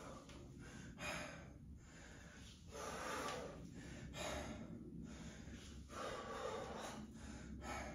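Hard, rhythmic breathing from exertion during a set of weight-lifting reps: a faint, noisy exhale roughly every second and a half.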